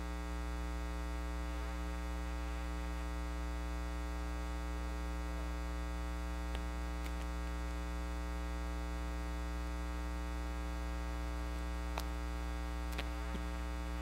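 Steady electrical mains hum in the audio system, with a few faint clicks.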